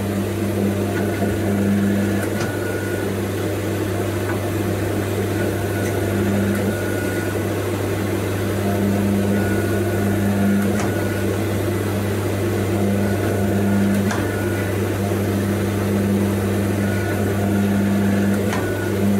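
Coal Iron Works 12-ton hydraulic forging press running under load as it squeezes a hot 35 mm square steel bar between flat dies: a steady low hum, with a second, higher hum that cuts out and comes back several times. A few faint clicks.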